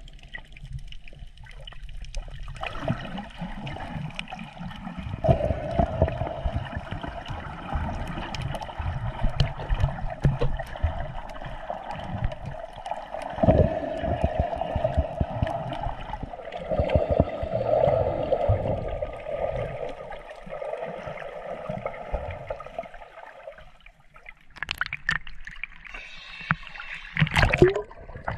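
Water gurgling and sloshing around a camera held in the sea while snorkelling, with irregular knocks and splashes. A quieter stretch comes near the end, followed by a few sharper splashes.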